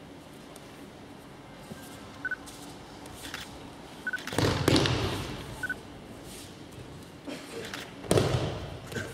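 Two heavy thuds of a body hitting a tatami mat as an aikido partner is thrown and takes breakfalls, the first about four and a half seconds in and the second about eight seconds in, with fainter knocks of feet on the mat before them.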